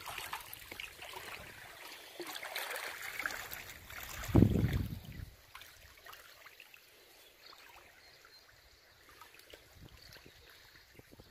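River water sloshing and swirling around a man's waders as he wades thigh-deep through the current. It is louder for about a second around four seconds in, then settles to a quieter trickle.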